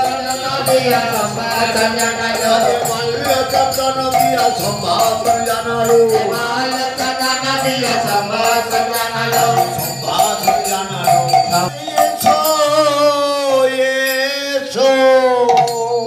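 Devotional kirtan singing: a voice holds long, wavering, ornamented notes over a quick, steady clatter of percussion.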